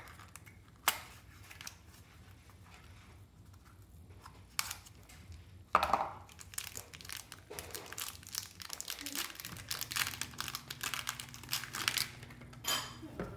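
A small cardboard box being opened with a few sharp snaps, then the plastic wrapping around a replacement robot-vacuum battery pack crinkling and tearing as it is pulled off.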